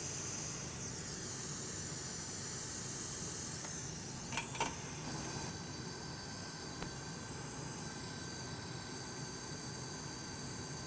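Hot air rework station blowing with a steady hiss while a flash drive's USB connector is desoldered from the board. Two small clicks come about four and a half seconds in, around the time the connector comes off.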